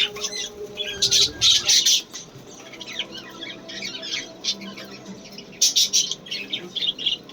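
Lovebird chicks calling with harsh, high squawks and chirps in clusters, loudest about a second in and again near the end.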